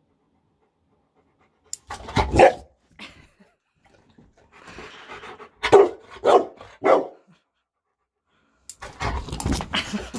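Rottweiler puppy barking at a hair clip held out to it: one loud bark about two seconds in, then three barks in quick succession around six seconds, and a rougher, noisier stretch near the end.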